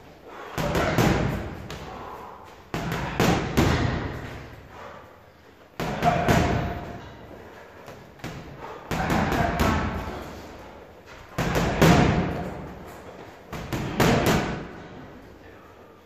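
Boxing gloves punching a hanging heavy bag in quick combinations of two to four punches, with a new combination every two to three seconds.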